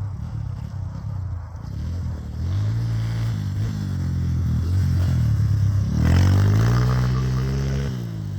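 Stomp 120R pit bike's small four-stroke single-cylinder engine revving under riding. The pitch rises and falls in several surges, with the loudest rev-up about six seconds in, then drops back near the end.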